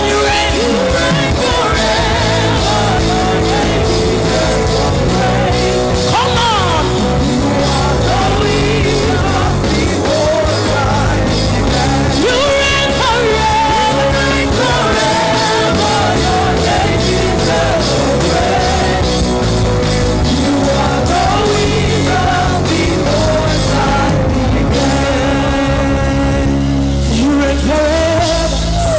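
Live gospel worship music: several singers singing into microphones over a band, with occasional shouted exclamations.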